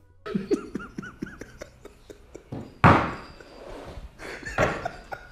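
A man laughing: a few faint pitched giggles, then a sudden loud burst of breathy laughter about three seconds in, and a weaker one about a second later.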